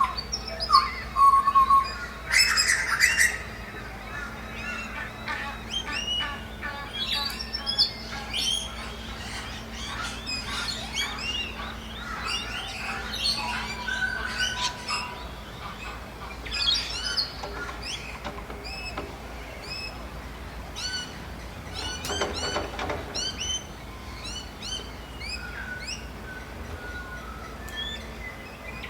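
Forest birds chirping and singing in many overlapping short calls, with a loud harsh squawk about two to three seconds in and another harsh call about 22 seconds in.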